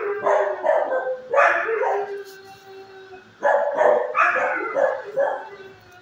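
Dogs barking in the echoing concrete-and-block kennels of an animal shelter, in bursts near the start, about a second and a half in, and again from about three and a half seconds, one bark drawn out into a held, howl-like note.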